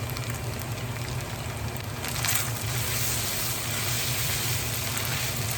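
Chowmein noodles with potato, carrot and onion sizzling in a hot pan over a steady low hum; the sizzle gets louder about two seconds in.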